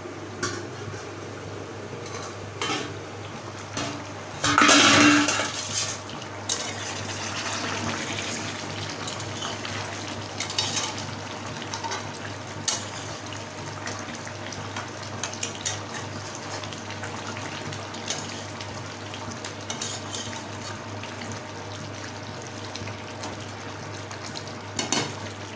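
A large metal lid is taken off a kadai with one loud ringing clank about five seconds in. Then a metal spatula stirs chicken curry in the pan, with scattered scrapes and taps against the metal.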